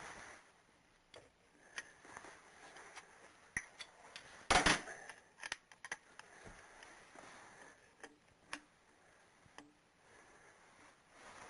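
Hand tools working on a bolt in the engine: irregular metallic clicks and taps, with a louder clatter about four and a half seconds in, as the bolt is turned a further 90 degrees in angle-tightening.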